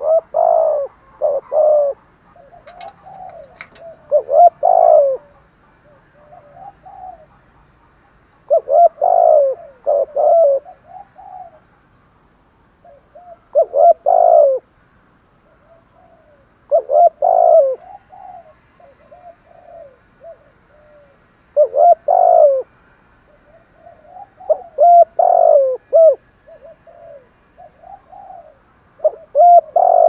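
Spotted dove cooing up close: a string of short, loud coo phrases every three to four seconds, with softer coos in between. This is the dove's full calling song, the kind used to stir up wild doves.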